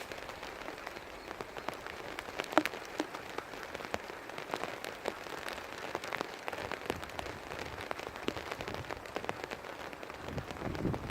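Heavy rain falling, a steady hiss dotted with many sharp ticks of individual drops.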